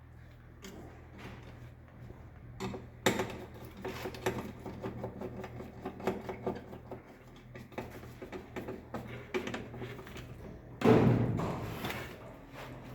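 Small clicks and knocks of tools and cable ends being handled while wiring a distribution board, with a louder knock about eleven seconds in, over a steady low hum.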